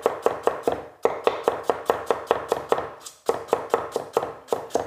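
Kitchen cleaver chopping a green vegetable into slices on a thick wooden chopping block: rapid, even knocks at about five strokes a second, pausing briefly about a second in and again about three seconds in.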